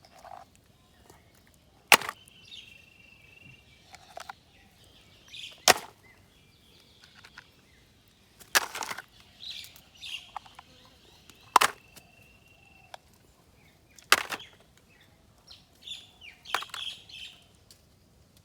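Toy vehicles being picked up and dropped into a collecting basket: sharp clacks every two to three seconds, with softer handling knocks between them. Birds chirp in the background.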